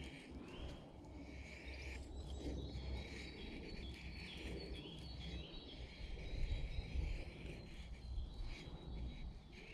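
Scandi-grind bushcraft knife shaving thin curls down a wooden stick in slow, repeated scraping strokes. Woodland birdsong chirps steadily behind it.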